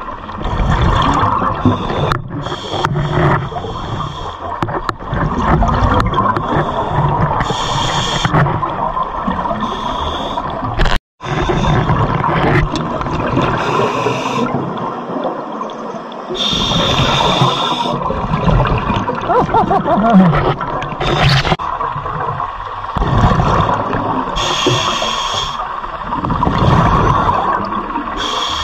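Scuba regulator breathing heard underwater: a hiss on each inhale and a rumbling burst of exhaled bubbles, about one breath every three seconds. The sound cuts out briefly near the middle.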